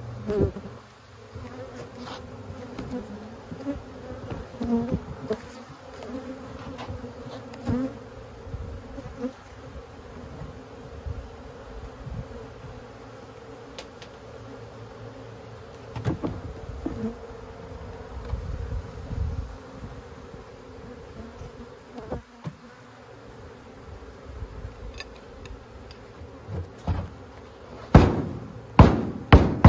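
Honeybees buzzing in a steady, dense hum as frames covered in bees are moved into the hive, with scattered light knocks of wooden frames and boxes. Near the end comes a run of loud, sharp knocks, a hive tool striking and prying wood.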